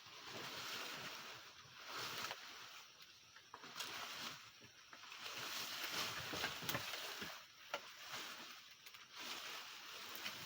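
Dry maize stalks rustling and crackling in uneven swells as they are handled and stacked, with scattered sharp snaps.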